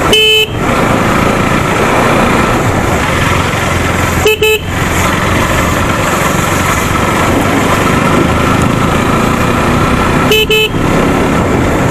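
Riding on a motorcycle: steady wind and road noise rushing over the microphone, broken three times by a short horn beep, near the start, about four seconds in and near the end.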